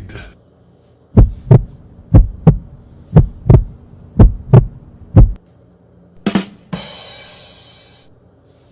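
Heartbeat sound effect: paired thumps, about one pair a second, five times. Near the end comes a short hit, then a hissing crash that fades away.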